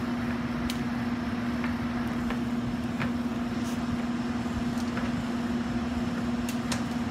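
Steady machine hum: one constant low tone over a noisy background, with a few light scattered clicks.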